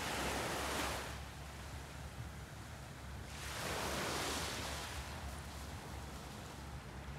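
Small waves washing onto a sandy beach: two swells of surf noise, one right at the start and another about three and a half seconds in. A steady low rumble runs underneath.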